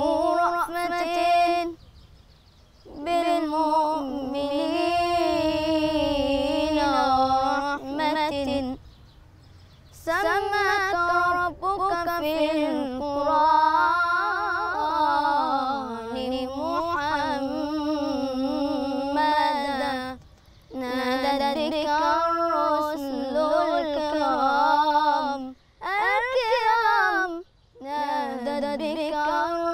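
A boy's solo unaccompanied voice chanting Islamic religious song (inshad), long ornamented phrases whose pitch turns and wavers, with short breaks for breath between them.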